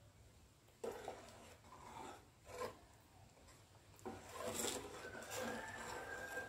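Spoon stirring thick sambar in a metal pressure cooker, scraping faintly against the pot with wet sloshing. A few short strokes come first, then steadier stirring from about four seconds in.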